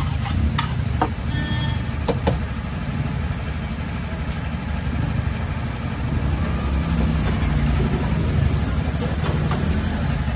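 A steady low rumble like an idling engine. A few sharp metal clicks of a steel spatula on the flat griddle come in the first two or three seconds.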